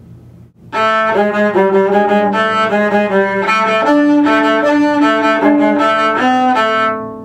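Solo cello, bowed, playing a short rock-style passage of held notes. It starts under a second in and stops shortly before the end.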